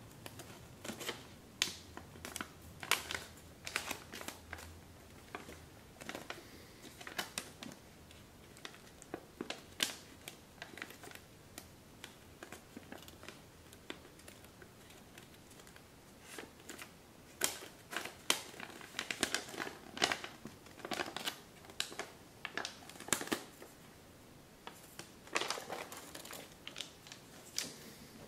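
A large sheet of thin kami origami paper crinkling and crackling under the fingers as it is folded and creased, in irregular clusters of sharp crackles.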